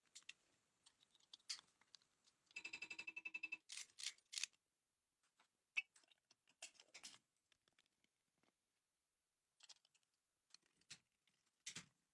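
Light clicks and taps from a small metal mechanism being worked by hand, with a quick ratcheting run of about a dozen clicks about two and a half seconds in. The ratcheting lasts about a second, and single sharp clicks follow at irregular intervals.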